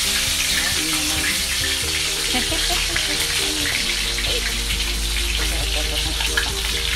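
Talakitok (trevally) steak frying in smoking-hot oil in a pan: a steady, loud sizzle.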